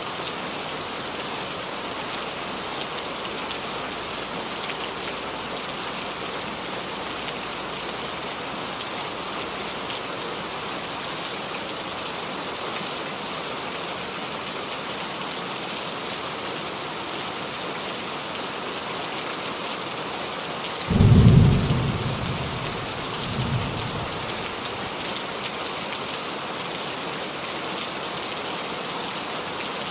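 Steady rain falling on a roof, an even hiss, with one loud low clap of thunder about two-thirds of the way in, followed a couple of seconds later by a fainter rumble.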